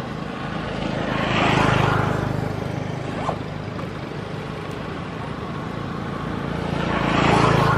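Two motor vehicles passing by one after the other, each engine and tyre noise swelling to a peak and fading, the first about a second and a half in and the second near the end, over a steady low engine hum.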